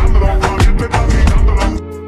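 Spanish-language pop song with a heavy bass beat and regular drum hits; near the end the beat and bass drop out, leaving held tones.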